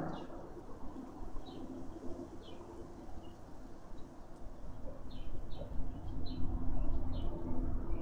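Wind rumbling on the microphone, with doves cooing low and steady and small birds giving short high chirps several times, most of them in the second half.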